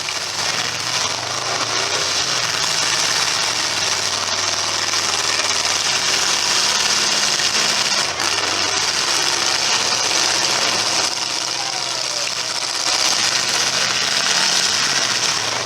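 Several demolition derby cars' engines running together, making a loud, steady din with a hissing noise over it.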